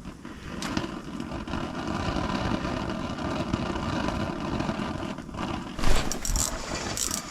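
An engine running steadily, building up over the first couple of seconds. A few sharp clicks or knocks come near the end.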